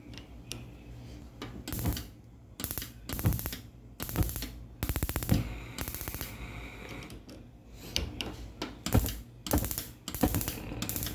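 Gas stove's electric spark igniters clicking in rapid runs, with louder bursts in between. These are the strange igniter noises the owner traces to bad burner caps.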